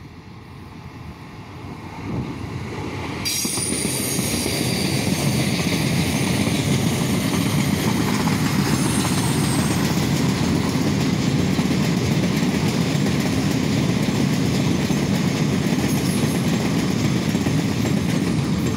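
Freight train of covered hopper wagons passing close by. Its rolling noise builds over the first few seconds, then holds as a steady, loud rumble of wheels on rail, with high wheel squeal coming and going.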